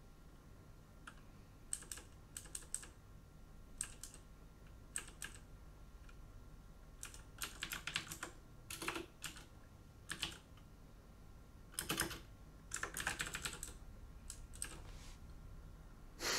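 Computer keyboard being typed on in short, uneven runs of keystrokes with pauses between them, busiest about eight and thirteen seconds in.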